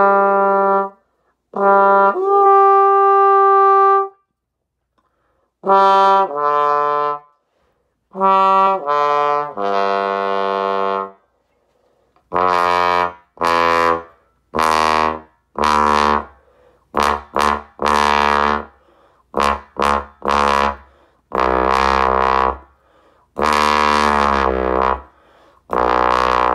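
Bass trombone played through a Windy City straight mute: a run of separate held notes in the middle register, then from about halfway a string of shorter notes down in the low register. These are test notes for resistance, and the player finds the mute blows freely down to about D and gets a little stuffy below that.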